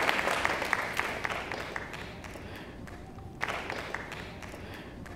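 Audience applause fading out over the first two or three seconds, then a brief second flurry of clapping about three and a half seconds in that dies away.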